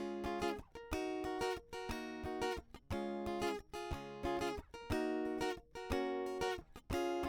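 Background music: plucked acoustic guitar playing repeated chords at a steady beat.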